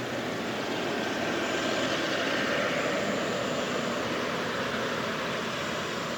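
Jet engine noise from a Boeing 777: a steady rushing roar with a faint whine that swells to a peak two or three seconds in, then eases slightly.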